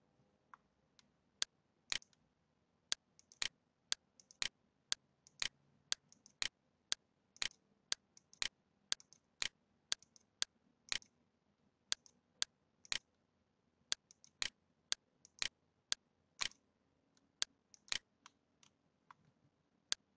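Computer mouse button clicking at a steady pace, about two clicks a second, some in quick pairs. Each click sets a point for a point-to-point freehand selection traced around an outline.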